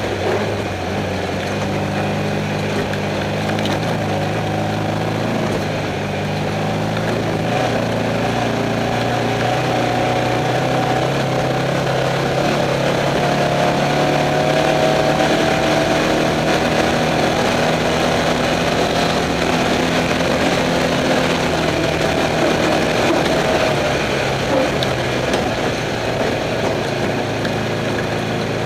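Off-road race car's engine running steadily, heard from inside the car over a constant rush of road and wind noise, a little louder through the middle.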